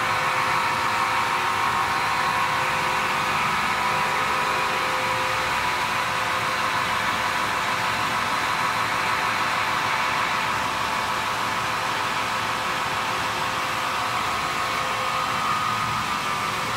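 Machinery of a PVC high-speed mixing line running, a steady whirring noise with a few steady high tones.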